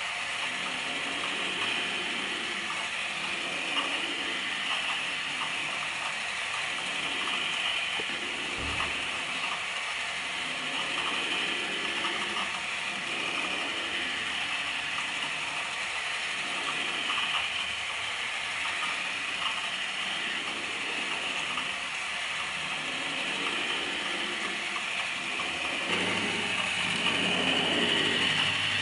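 Motor-driven twin-turntable drawing machine running: its turntables and pen linkage whir and rattle steadily, with a slow rise and fall every couple of seconds. There is a brief low bump about nine seconds in, and a low hum joins near the end.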